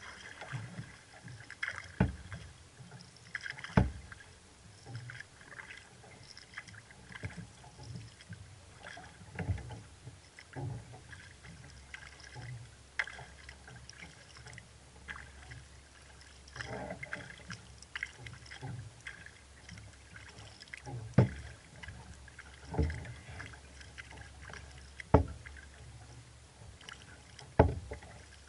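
Necky Chatham 18 sea kayak being paddled: splashing and dripping from the paddle strokes over a steady watery hiss, with sharp slaps against the hull every few seconds.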